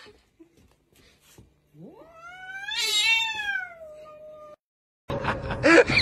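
A cat gives one long, drawn-out yowl about two seconds in, rising and then falling in pitch. Near the end a louder run of clicking sounds with a voice or music cuts in.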